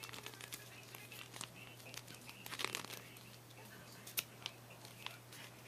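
Yellow adhesive tape crinkling and crackling as it is pulled and pressed around a rolled paper tube. Scattered sharp clicks, a denser patch of crackle about midway and two louder snaps near the end, over a steady low hum.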